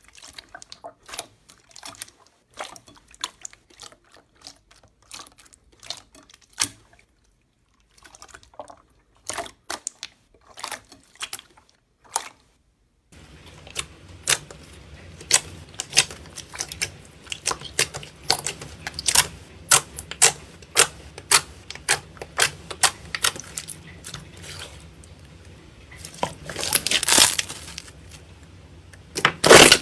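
Slime being squished and pressed, giving a quick series of short sticky clicks and pops. About thirteen seconds in the sound changes to another take with a low steady hum underneath, and near the end there is a longer stretch of squelching noise.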